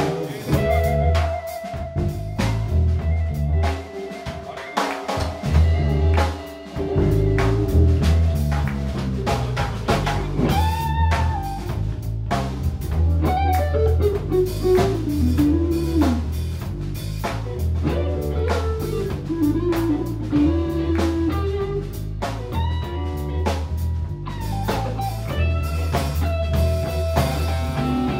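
Live band playing an instrumental on drum kit, electric guitars and bass, with a lead guitar melody that bends up and down over a steady beat and a heavy low end.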